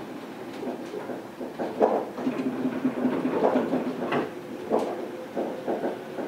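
Chiba Urban Monorail 1000-series car standing at the station after arrival: irregular clunks and knocks, with a steady hum for about two seconds in the middle.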